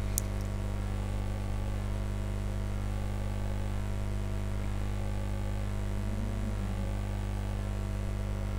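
Steady low electrical hum, mains hum on the recording, with a single short click just after the start.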